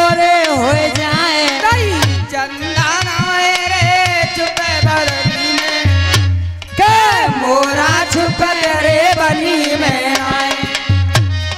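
Live north Indian folk devotional singing: a single voice sings a melismatic, gliding melody over harmonium and a steady, rhythmic hand-drum beat. The voice breaks off for a moment about six seconds in and comes back in.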